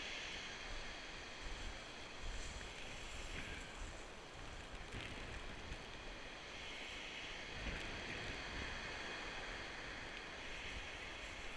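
Heavy surf breaking on a shingle beach, its hiss swelling and fading as waves wash up and drag back over the stones, with wind rumbling on the microphone.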